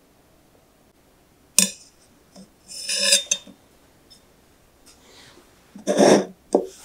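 Metal cake server and ceramic plates clinking: a sharp ringing clink about a second and a half in and another ringing clink around three seconds, then a louder, duller knock near the end as the small ceramic plate is handled on the wooden table.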